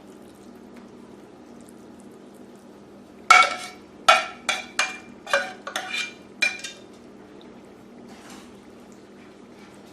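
A metal spoon clanking and scraping against a pot about eight times in quick succession as cherry pie filling is scooped out into a pie shell, over a steady low hum.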